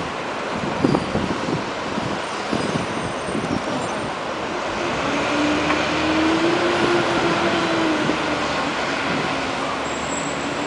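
Road traffic crossing a city intersection: a city bus drives across, its engine hum rising and then falling through the middle, with cars and a pickup truck passing. A couple of knocks sound about a second in.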